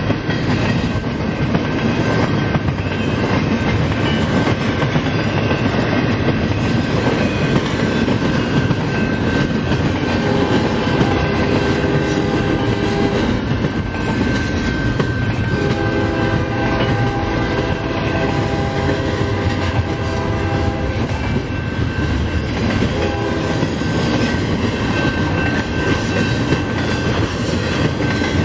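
Double-stack container train cars rolling past close by, a steady rumble of wheels clacking on the rail. A locomotive horn blows over it in long blasts from about ten seconds in until about twenty-one seconds, with one short blast a little later.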